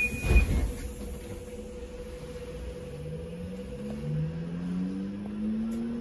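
Inside a Sinara-6254 trolleybus: a high beep stops with a thump in the first half-second. From about two and a half seconds in, the electric traction drive whines rising steadily in pitch as the trolleybus accelerates away, over a steady hum and low rumble.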